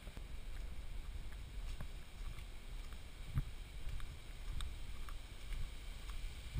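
Low, muffled rumble of wind and handling noise on a GoPro sealed in its waterproof housing, starting suddenly as the camera is moved. Scattered light ticks and one sharper thump about three and a half seconds in.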